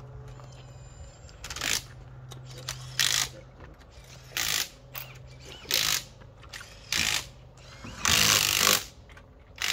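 Impact wrench working a rally car's wheel nuts during a wheel change, run in short bursts about every second and a half, the last one longer.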